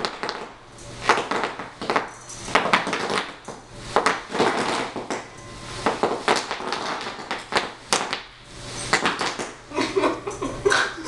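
Bubble wrap popping under wheelchair wheels: clusters of sharp pops and crackles, coming in irregular bursts about once a second.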